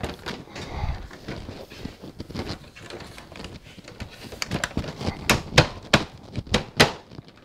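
Hard plastic clicking and knocking as a tight-fitting painted plastic rear cover on a Honda GoldWing is pressed and worked into place by hand, with a run of sharp clicks about five to seven seconds in.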